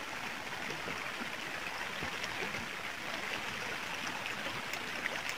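A steady rushing hiss with faint light crackles scattered through it.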